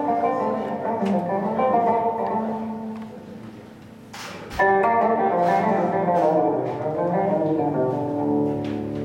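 Solo oud played with a plectrum in plucked melodic runs. One phrase dies away, and a second begins with a strong attack about four and a half seconds in. Held low tones join it near the end.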